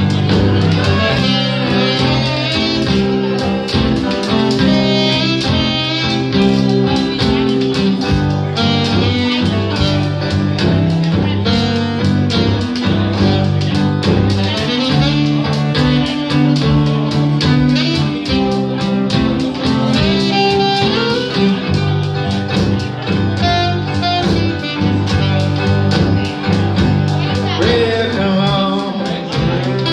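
Live small band playing a bluesy jazz tune: alto saxophone carrying a wavering melody over two strummed guitars, one an archtop and one an acoustic, with a washboard scraping out the rhythm.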